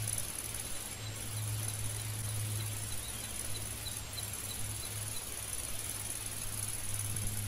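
Outdoor insect chorus: a steady high-pitched drone of insects, with faint rapid chirps about three a second and a low rumble underneath. The drone drops out for a moment at about one second and again at about four seconds in.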